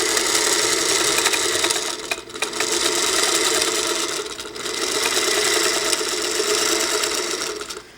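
Sewing machine running steadily as it stitches a seam through quilt fabric, easing off briefly twice, about two seconds in and again at about four and a half seconds.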